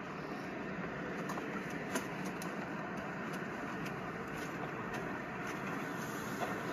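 LEGO toy train running slowly along plastic track: a steady rolling noise with scattered faint clicks.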